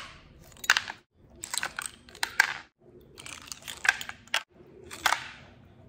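A metal ladle spooning a wet salad of blood cockles in their shells onto a ceramic plate: shells and spoon clicking against the plate in four short bursts.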